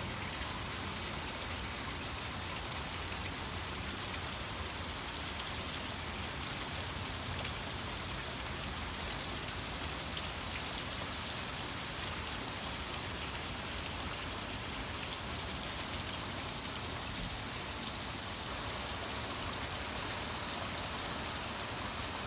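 Torrential rain falling steadily on a street, lawns and parked cars: an even hiss flecked with many small ticks of drops.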